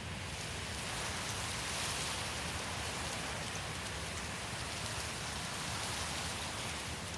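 Wind blowing: a steady rush of noise that swells a little about two seconds in.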